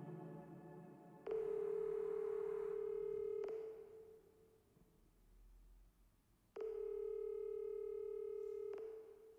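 A telephone ringback tone, slowed down and drenched in reverb: the song's last reverb fades out, then two long steady ringing tones of about two seconds each come in with a pause of about three seconds between them, as on a call that is ringing unanswered.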